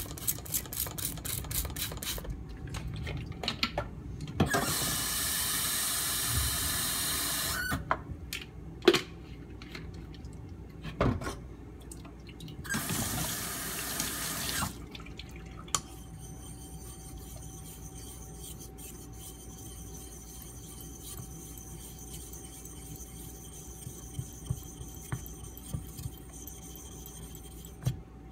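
Quick, regular strokes at the start, typical of a knife being worked on a water stone. Then a tap runs into a sink twice, for about three seconds and then about two seconds, with a few knocks in between.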